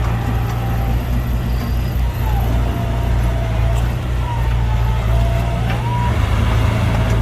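Heavy diesel engine of earthmoving machinery running steadily, with a faint whine that rises and falls in pitch several times.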